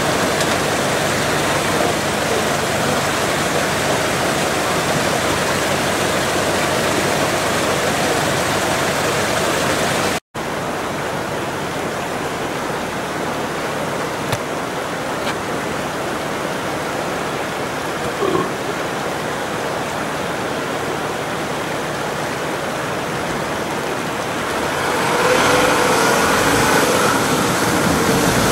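Rushing water of a shallow, rocky mountain river, a steady noise, broken by a brief dropout about a third of the way in. Near the end an SUV engine grows louder as a Nissan Patrol drives through the river toward the listener.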